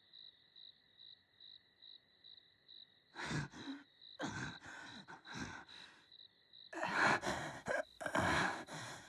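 Animated sci-fi sound effects. A faint electronic beep pulses about twice a second over a steady high tone, then several short, noisy rushes follow from about three seconds in.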